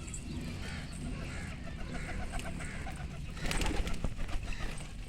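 Pigeons cooing, over a steady low hum, with a louder noisy burst lasting about half a second some three and a half seconds in.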